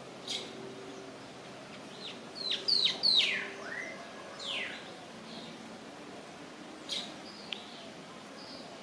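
Bird calls: short, sharp notes that sweep steeply down in pitch. The loudest come in a quick cluster of several about two and a half seconds in, and single calls fall before and after it.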